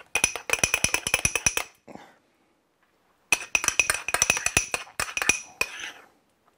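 Metal spoon clinking rapidly against a small ceramic ramekin while stirring two whipped creams together. The clinks come in two quick bouts, the second starting about three seconds in after a short pause.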